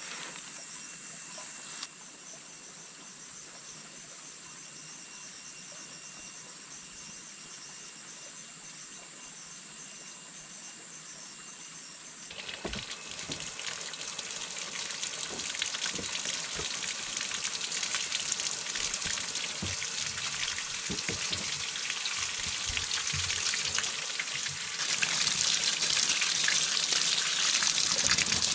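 Running water: a rushing, splashing hiss that starts abruptly about twelve seconds in and grows steadily louder, stepping up again near the end, over a faint steady background hiss with a thin high tone.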